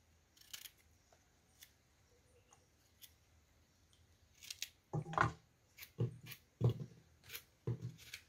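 Kitchen knife slicing through okra pods held in the hand, a series of short crisp cuts. The cuts are sparse and faint at first, then come faster and louder in the second half.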